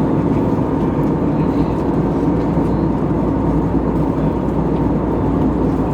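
Steady cabin noise inside an Airbus A320neo: an even rush of engine and airflow noise with a faint steady hum in it.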